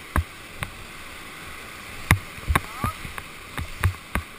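Whitewater rapid rushing steadily around a paddle raft, with a string of sharp knocks and thumps against the raft, more frequent in the second half.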